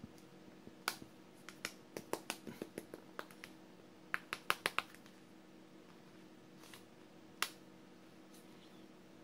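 Sharp plastic clicks and clacks from a toy telescoping police baton being handled, its segments knocking together. There is a quick run of clicks in the first few seconds, a fast cluster of four about four and a half seconds in, and one more click near the end.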